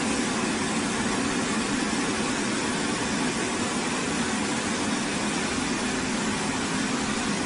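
Five-brush car washing machine running: a steady rushing noise over a low hum.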